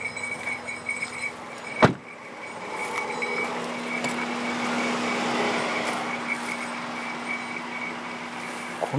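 A car door, on a Suzuki Jimny JB64, shutting with one sharp thud about two seconds in. Then steady outdoor hiss, with a high, pulsing insect trill throughout and a low steady hum coming in after about three seconds.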